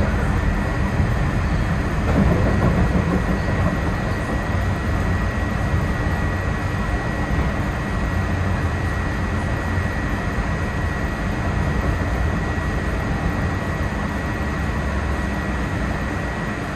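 Walt Disney World Mark VI monorail train running at speed, heard from inside a car: a steady, even rumble of the drive and running gear under a thin, constant high whine.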